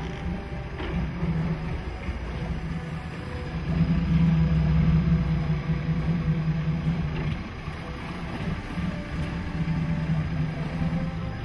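A boat's engine idling with a steady low hum that swells louder twice.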